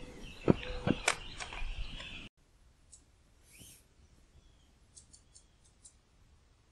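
Morning bird calls over forest, with several sharp loud calls, cutting off abruptly about two seconds in. Then it goes quiet, with a few faint clicks near the end.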